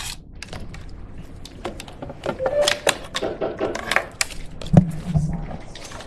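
A run of small irregular clicks, knocks and rustles from handling a USB charging cable and plugging it in to power.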